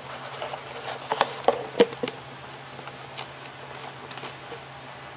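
Hands working a foam model airplane and servo wire: scattered light clicks and rustles, busiest in the second second and with one more click a little past three seconds in.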